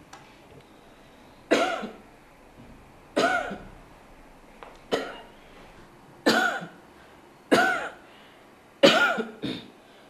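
A woman coughing deliberately on request, seven separate coughs about one and a half seconds apart, each sharp at the start and quickly trailing off, recorded close into a microphone for a cough-analysis screening test.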